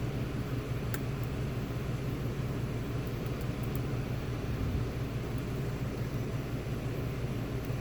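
A steady low hum over even hiss, with a few faint light clicks about a second in and again between three and four seconds in, typical of pick tools working the pins and sliders of a Fab Dynamic lock.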